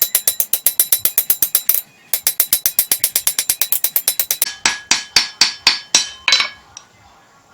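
Hand hammer striking a hot spring-steel knife blade on an anvil, with a ringing tone on each blow. The blows come quick and even, about six a second, break off briefly near two seconds, then slow to a handful of spaced blows and stop about six and a half seconds in. The light, rapid hammering is smoothing out lumps in the blade before hardening.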